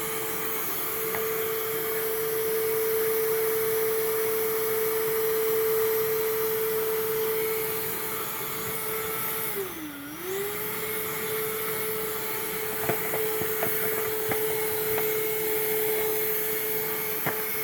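Hoover React cordless vacuum cleaner running with a steady motor whine over the rush of air. About ten seconds in, the motor pitch briefly sags and then recovers, as if the suction were momentarily loaded. A few faint light clicks come later.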